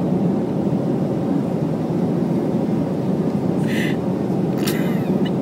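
Steady cabin noise of an airliner in flight: an even, low rush of engines and airflow, with a couple of brief hissy sounds near the end.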